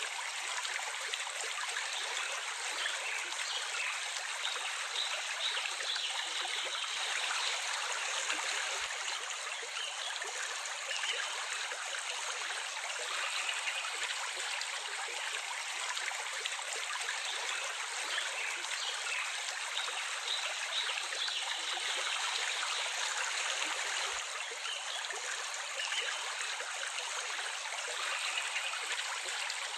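Running water, a steady, even flow with no pauses or changes.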